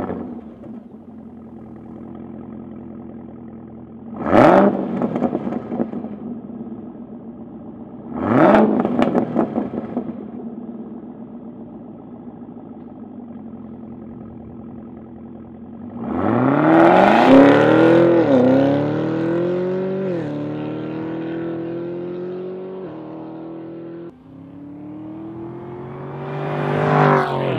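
Supercharged 6.2-litre V8 of a 2016 Cadillac CTS-V through a Borla S-Type cat-back exhaust. It idles, with two quick throttle blips about four and eight seconds in. At about sixteen seconds it pulls away hard and shifts up through several gears as it draws off, and near the end it grows louder as the car comes back.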